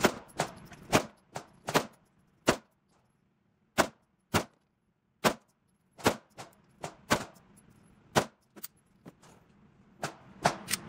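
A string of handgun shots at an indoor range: more than a dozen sharp reports at uneven spacing, some close together and others about a second apart. This is a group fired at 25 yards to test whether the red dot sight still holds zero after torture testing.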